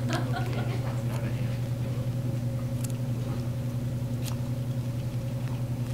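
Guinea pigs chewing a carrot and food pellets, a few short crunching bites, over a steady low hum.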